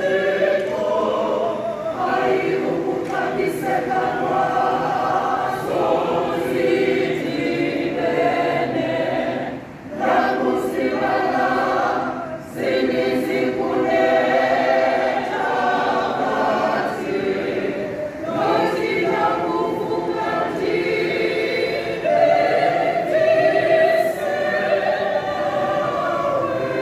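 Church choir, mostly women's voices, singing a hymn unaccompanied in several parts, with brief pauses for breath between lines.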